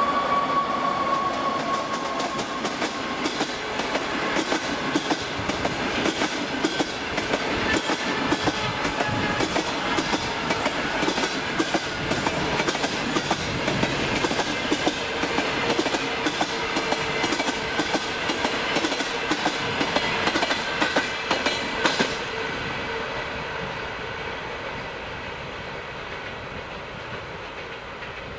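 Passenger coaches of an express train rolling past at speed, wheels clicking sharply and often over the rail joints. After about twenty seconds the last coach passes: the clicking stops and the rolling noise fades as the train moves away.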